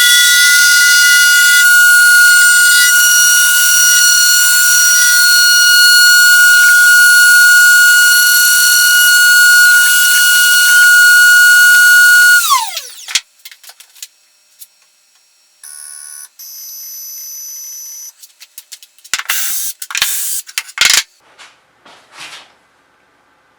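CNC machine spindle running at speed with a loud, steady high-pitched whine, then spinning down with a quickly falling pitch about twelve seconds in. Afterwards a short, quieter steady tone sounds, followed by a few knocks and rustles.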